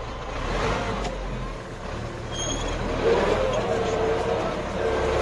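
MTZ 820.2 tractor's diesel engine running steadily under load while ploughing, heard from inside the cab. A higher wavering whine joins about three seconds in.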